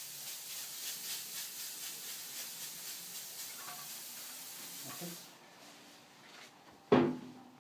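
Hiss of insecticide spray from the lance of a hand-held pressure sprayer, held on steadily and then cut off about five seconds in. A single sharp knock comes near the end.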